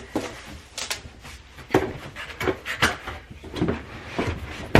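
Cardboard shipping box and its packaging being handled and opened: a string of scattered scrapes and knocks.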